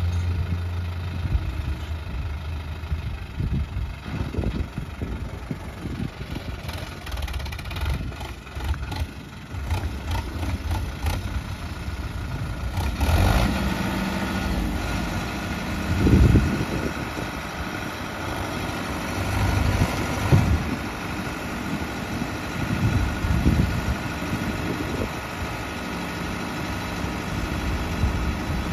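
Sonalika 750 tractor's diesel engine running under a loaded tipping trailer, its revs swelling and falling in several surges. Near the end it drives the hydraulic lift that is tipping the trailer to dump its earth.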